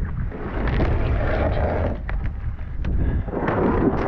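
Wind rumbling on the action camera's microphone, with water sloshing and a few sharp cracks of thin ice broken around a stand-up jet ski.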